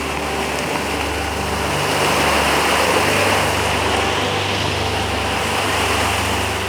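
Rushing water of a waterfall or river, a steady dense rush that grows louder through the middle, with background music underneath.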